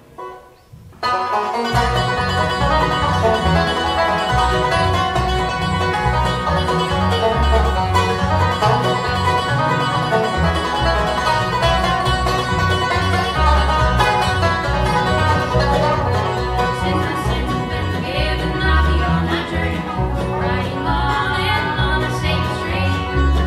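Bluegrass band of mandolin, banjo, acoustic guitar and upright bass starting a song about a second in, with the banjo prominent and the bass walking underneath. Two women's voices come in singing in harmony near the end.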